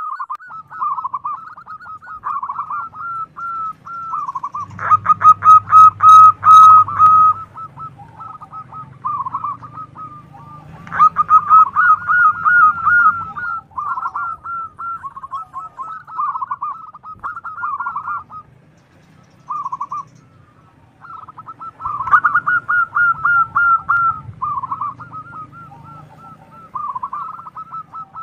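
Zebra dove (perkutut) cooing: rapid, rippling phrases repeated one after another with short pauses. The calls are loudest about five seconds in, and again around eleven and twenty-two seconds, with a brief lull just before twenty seconds.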